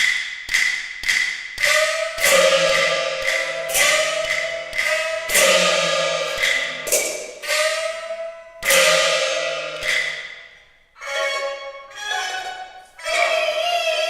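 Peking opera accompaniment: a run of sharp percussion strokes that ring and die away, coming faster at first and then about once a second. Near the end the jinghu fiddle comes in with sustained bowed notes.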